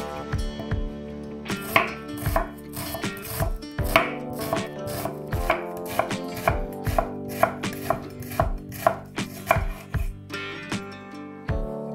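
Chef's knife slicing an onion on a wooden cutting board, the blade knocking on the board about twice a second. The rhythm breaks briefly near the start and again near the end.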